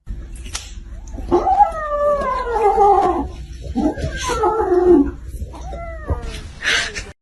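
A pet animal giving two long wailing calls that slide down in pitch, with a few shorter calls around them.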